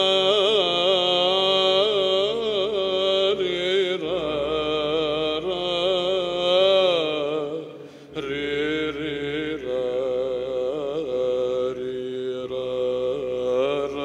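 Byzantine chant sung by a monk as a solo male voice: a long melismatic phrase with ornamented turns on held vowels. The voice breaks off briefly about eight seconds in and then resumes.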